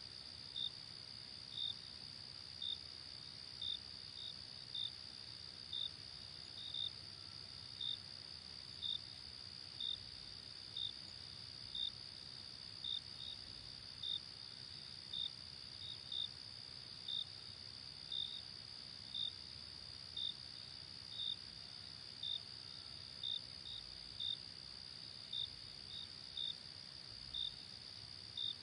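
Night-time insect chorus: a steady high trill with a cricket chirping about once a second over it.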